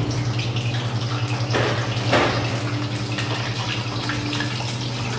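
Tempe steak patty searing in melted butter in a frying pan on a gas burner: a steady sizzle that surges twice, about one and a half and two seconds in, over a steady low hum.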